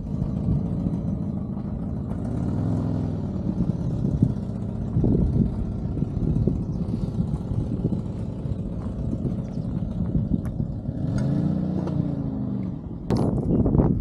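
A vehicle engine runs with a steady low rumble. Twice, a few seconds in and again about eleven seconds in, an engine's pitch rises and falls.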